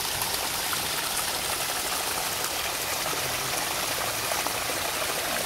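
Hot spring water flowing steadily over rocks near the spring's outlet.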